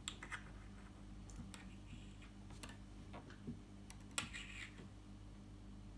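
Faint, scattered light clicks and taps of a gold ring being handled over a wooden tabletop, about ten in all, the clearest about four seconds in. A low steady room hum lies beneath.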